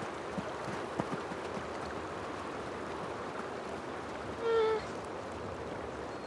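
Steady rush of a shallow river flowing. About four and a half seconds in, one short high-pitched animal call rises above it.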